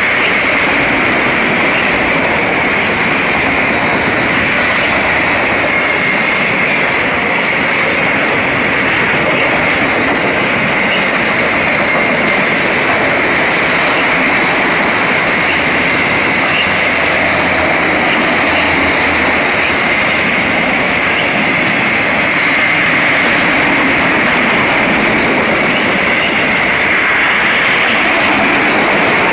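Freight train of autorack cars rolling past close by, a loud steady rush of wheels on rail with a steady high tone over it.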